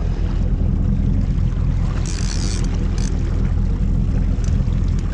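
Fishing boat's engine running steadily at trolling speed: a low, even drone. A brief hiss breaks in about two seconds in.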